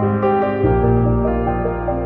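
Instrumental background music with held notes and a slowly moving melody; a low bass note comes in just over half a second in.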